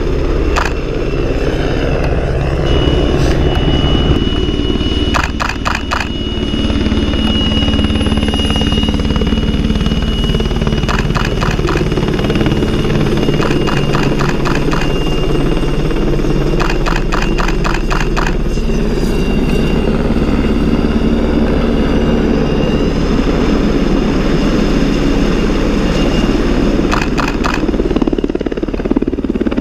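Helicopter flying low circuits: a steady high turbine whine over a heavy rotor rumble. Bursts of rapid rotor chopping come four times, and the pitch sweeps up and down as it passes.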